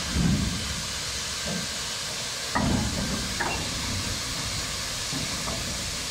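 Steady hiss of steam from a Hunslet saddle tank steam locomotive as it moves slowly with a train of coal hopper wagons. Two low thumps, one at the start and one about two and a half seconds in, and a few short metallic clanks come from the train.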